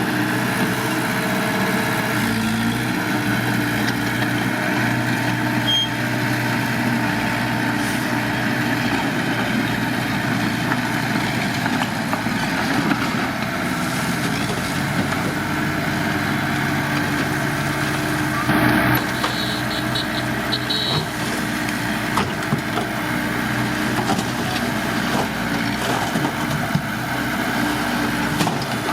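Heavy earthmoving machine's diesel engine running steadily. About two-thirds of the way through comes a short clatter, followed by a few brief high-pitched squeals.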